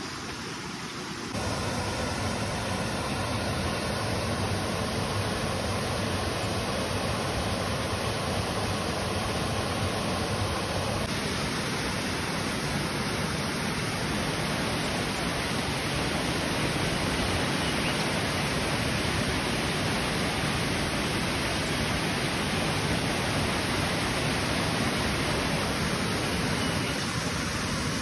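Water of a rocky creek cascade rushing steadily down into a pool, a constant wash of falling water. It gets a step louder about a second in.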